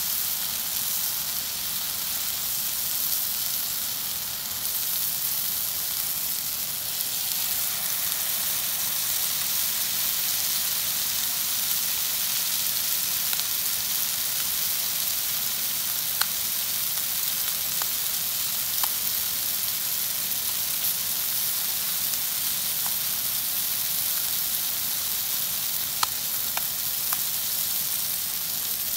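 Masala-coated fish steaks shallow-frying in hot oil in a flat pan, a steady sizzle with a few faint pops, growing a little fuller several seconds in.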